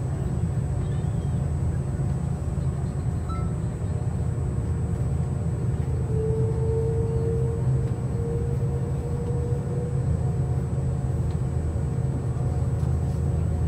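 Jet airliner cabin noise during taxi: a steady low rumble of the engines and rolling gear, with a faint steady hum that grows stronger for a few seconds midway.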